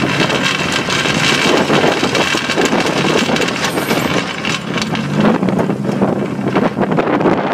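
An engine running steadily, its pitch rising briefly about five seconds in, with wind noise on the microphone.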